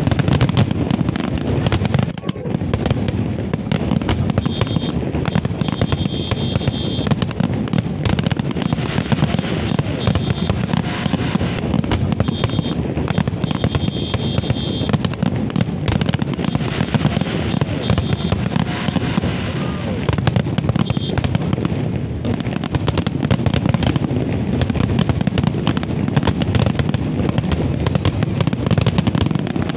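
Fireworks display: a dense, unbroken barrage of rapid bangs from aerial shells bursting, with a crowd's voices underneath.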